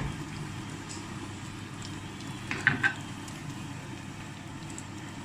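Tadka of whole red chilies, cumin seeds and curry leaves sizzling steadily in hot oil, with a few sharp pops about two and a half seconds in as the curry leaves spit.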